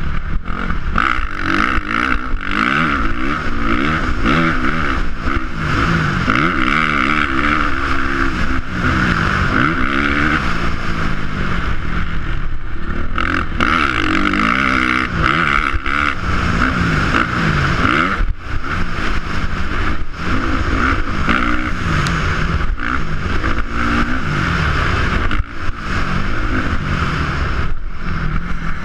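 Motocross dirt bike engine heard from on the bike, revving up and dropping back over and over as the rider works the throttle and gears around the track.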